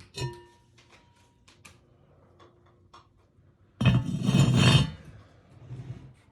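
Enameled cast iron Dutch oven and lid clinking together once, the clink ringing on for a couple of seconds. Near the middle, a loud rough scrape or rustle lasts about a second, followed by a few light knocks.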